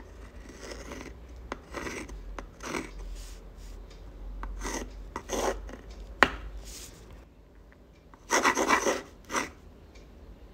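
A uni-ball fine-tip pen scratching across textured sketch paper in a series of short and long writing strokes. There is a single sharp click about six seconds in, and the loudest, longest strokes come a little after eight seconds.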